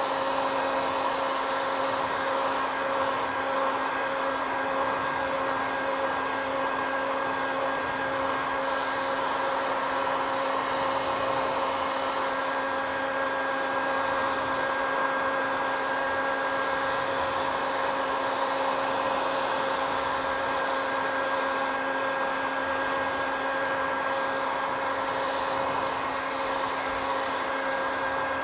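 Handheld electric heat gun running steadily, a constant blowing rush with a low hum, as it dries cyanotype sensitizer on paper.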